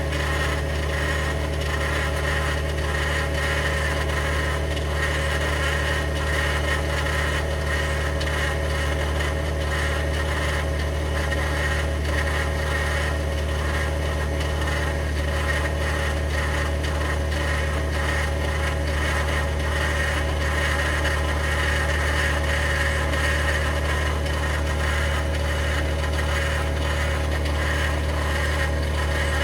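2021 Ford F-150 PowerBoost's 3.5-litre twin-turbo V6 hybrid powertrain running steadily after a remote cold start in deep cold. It gives a deep steady hum with a constant higher-pitched gritty whine over it, the cavitating/grinding noise that the owner hears on cold starts.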